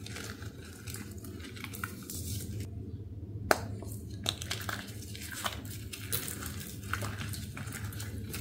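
A crumbly block made with fizzy water being crushed, giving irregular crunches and crackles, with one sharp crack about three and a half seconds in.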